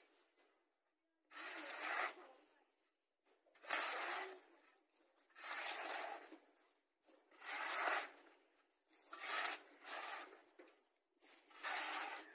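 Metal shovel blade scraping and scooping loose, dry soil in repeated strokes, about one every second and a half.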